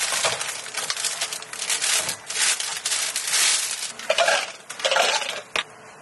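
Thin plastic film crinkling and rustling as it is wrapped around a takeout plastic cup with a dome lid, in quick irregular bursts that stop shortly before the end.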